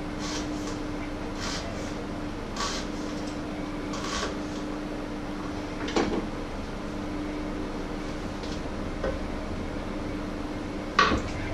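Kitchen knife cutting vegetables on a wooden cutting board: a few separate cuts, with a sharper knock about six seconds in. Near the end a loud knock as the board is tipped against the edge of a frying pan. A steady low hum runs underneath.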